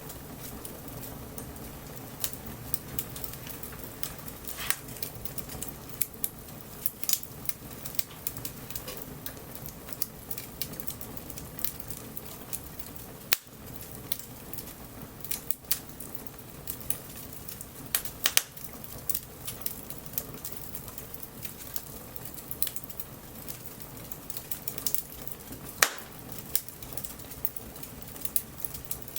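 Wood campfire crackling, with irregular sharp pops scattered throughout over a steady low hiss of the burning.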